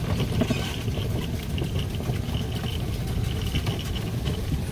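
Polaris Ranger side-by-side's engine running steadily as it drives slowly along a dirt trail.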